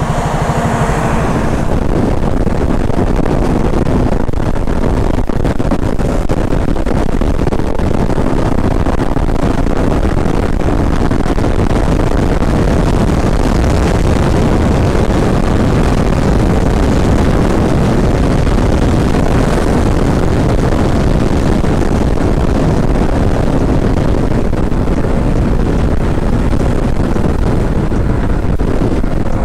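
Wind rushing over the microphone of a moving motorcycle, with the KTM Duke 200's single-cylinder engine running steadily underneath at road speed.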